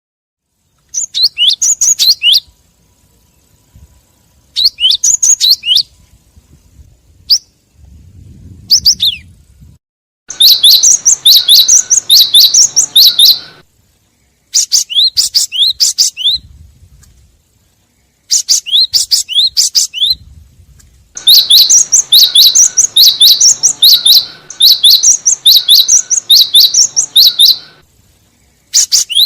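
Cinereous tit (gelatik batu) calling in a lure recording: bouts of rapid, sharp chirping notes, about four a second, with short pauses between them. The longest bout runs about six seconds near the middle of the clip.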